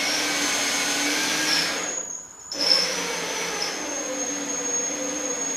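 Cordless drill driving a screw into a plasterboard wall anchor to set it, its motor running with a steady whine. It stops briefly about two seconds in, then runs again.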